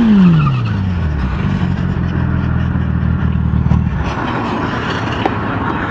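Sport motorcycle engine winding down as the bike brakes hard, its pitch falling quickly, then running low and steady before the engine note stops about four seconds in. Wind noise runs throughout.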